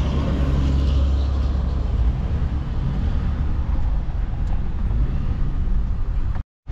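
Steady low road and engine rumble inside the cabin of a moving truck. The sound cuts out suddenly for a moment near the end.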